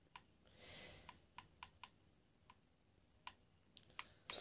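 Faint, irregular clicks of buttons being pressed, about nine in four seconds, while the show's sound is stopped during skipping through the video. A short soft hiss comes about a second in.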